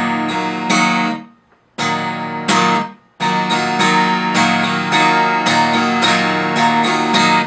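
Guitar strummed slowly in a galloping 'galop' pattern: a downstroke with all fingers, an upstroke with the thumb, then a downstroke again. Two short groups of strokes come first, each followed by a brief pause, and then the pattern runs on without a break from about three seconds in.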